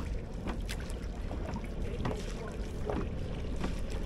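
Footsteps knocking on wooden dock planks at a walking pace, about one step every two-thirds of a second, over a steady low rumble of wind on the microphone.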